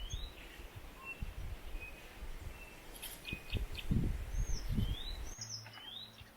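A bird calling outdoors with short whistled notes that rise and then fall, repeated near the start and again in the second half. Under it runs a low rumble, loudest around the middle, like wind or handling on the microphone.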